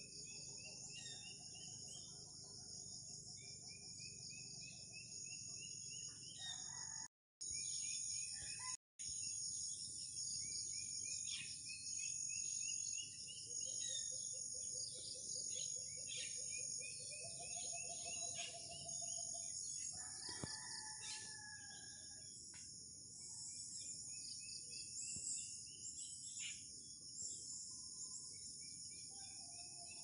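Steady high-pitched chorus of crickets or other insects, with a bird repeating a short rising call every few seconds. The sound drops out twice briefly early on.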